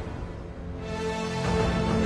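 Background music with steady held tones, dipping briefly at the start and swelling back by the end.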